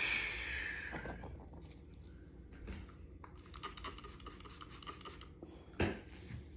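Quiet rubbing and scratching from hands working a lace wig at the hairline, opening with a short hiss that fades over about a second and with a single knock near the end.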